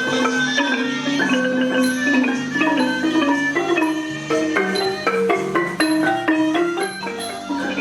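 Music led by a quick melody of struck mallet-percussion notes, like a marimba or xylophone, over held low notes.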